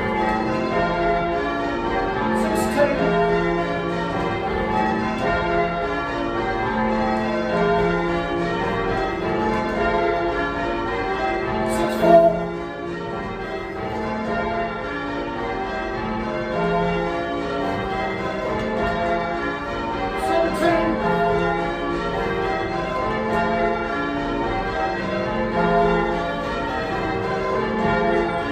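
A ring of eight church bells rung in changes, mostly Gillett & Johnston bells of 1937 with two Thomas Wroth bells of 1750, the tenor in F. The strikes follow one another in a steady, unbroken sequence, with a sharp knock about twelve seconds in.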